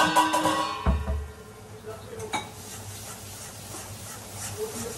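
Metal kitchenware clanks: a sharp knock at the start rings briefly, a dull thump follows about a second in, and a second knock comes a little after two seconds. Then a ladle stirs quietly in a metal kadhai on the gas stove.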